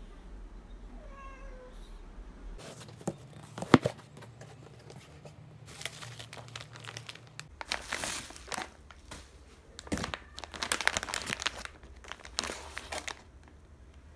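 A cat meows faintly in the first couple of seconds. Then a plastic food bag crinkles and rustles in bursts as it is handled in a cardboard box, with one sharp click a few seconds in as the loudest sound.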